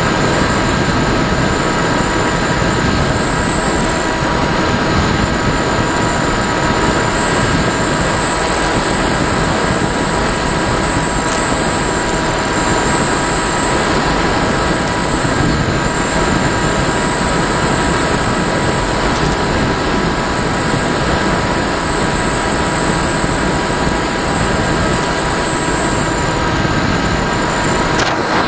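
Firstar 2000 RC motor glider in flight, heard through its onboard camera: a steady rush of wind noise with several thin steady tones and a wavering high whine over it.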